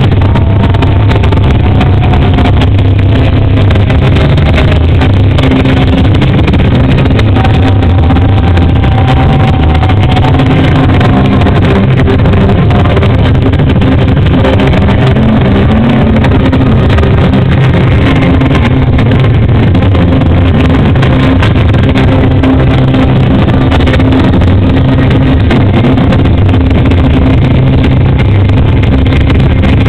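Live rock band and crowd at an outdoor concert, recorded through an overloaded microphone so that everything runs together into a constant, heavily distorted bass-heavy rumble, with faint wavering voices above it.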